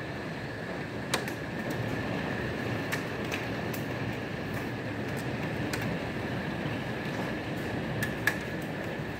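Hailstorm: a steady roar of wind and falling rain and hail, with scattered sharp clicks of hailstones striking, the loudest about a second in and near the end.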